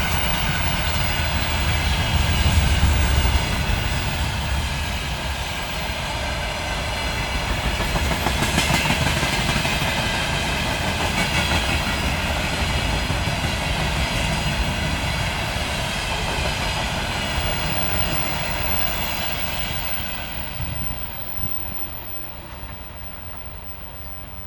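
2TE116 diesel locomotive's 5D49 V16 diesel engines running under way as the train moves along, with wheels clicking over rail joints. A steady, loud low rumble that fades over the last few seconds.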